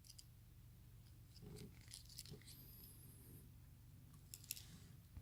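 Near silence, with a few faint clicks and rustles of a Swiss Army knife being handled.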